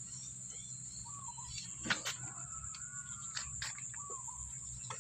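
Steady high-pitched drone of insects with scattered short bird chirps. A few light clicks from a hand tool worked against the pipe fitting, the sharpest about two seconds in.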